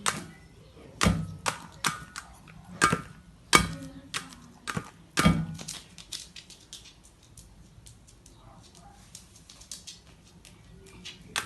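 A seagull's beak pecking and knocking at a dish of cat food: a string of sharp taps, loudest in the first half, then lighter, scattered ticks.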